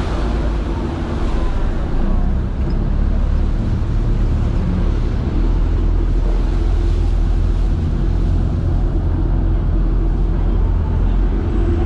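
Sightseeing ship's engine running with a steady low drone, under a wash of rushing water and wind.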